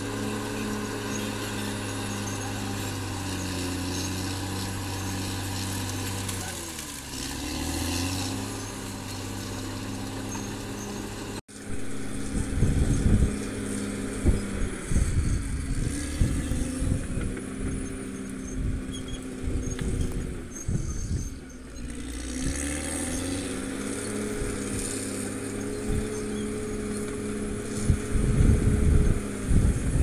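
Caterpillar D6R XL bulldozer's diesel engine running under load as it pushes dirt. Its pitch sags and recovers twice. After a brief dropout about eleven seconds in, bursts of low rumble come and go.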